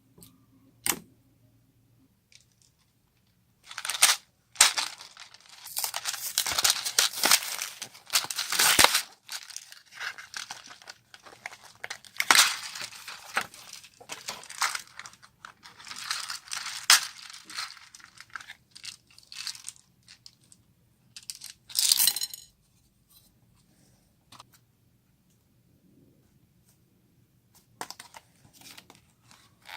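Slime being squished, stretched and pulled apart by hand, giving dense crackling and crunching in several bouts with quiet pauses between.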